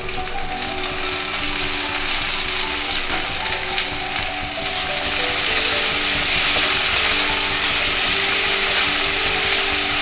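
Chopped tomatoes and onions sizzling in hot mustard oil in an aluminium kadai, stirred with a metal spatula that scrapes against the pan. The sizzle grows louder about halfway through.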